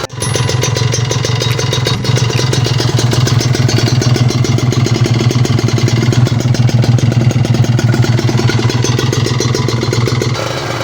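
Kawasaki Ninja 150 RR's single-cylinder two-stroke engine idling steadily, with a rapid even beat of exhaust pulses.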